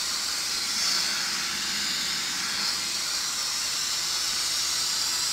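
Steady static hiss from a Sony KLV-40V400A LCD TV's speakers, the set tuned to a channel with no signal. It is the sound of the repaired set powered on, with its audio working.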